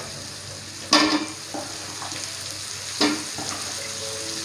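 Chopped vegetables frying in oil in a wok, with a steady sizzle and two sharp, louder bursts of sizzling, about a second in and about three seconds in, as handfuls of round eggplant and long beans are tipped into the hot pan.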